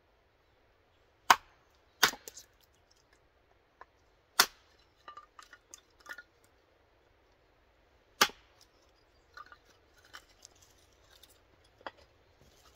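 Hatchet splitting kindling on a log chopping block: four sharp cracks of the blade biting through the wood, spaced a second to a few seconds apart, with lighter knocks of wood between them.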